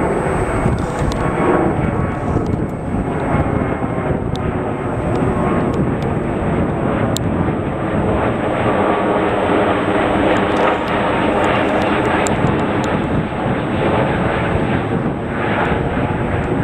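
Twin-engine widebody jetliner flying low overhead: steady, loud jet engine noise with a faint held hum running through it.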